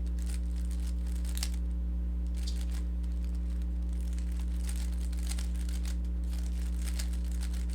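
Rubik's cube being turned through an algorithm: faint, irregular plastic clicks and scrapes of the layers turning, over a steady low electrical hum.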